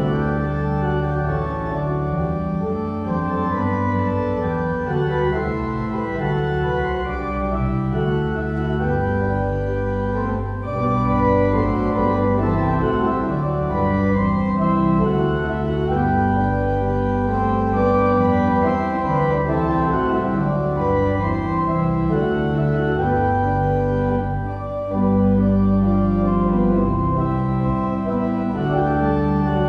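Organ music: held chords and a slowly moving melody, playing continuously.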